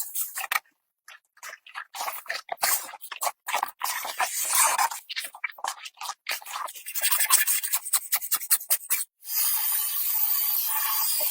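Irregular rubbing and scraping strokes, many in quick succession, broken by several abrupt short silences, becoming a steadier hiss-like scraping from about nine seconds in.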